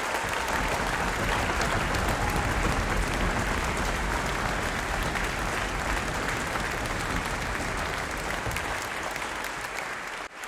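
Concert hall audience applauding, a steady wash of many hands clapping, which cuts off suddenly near the end.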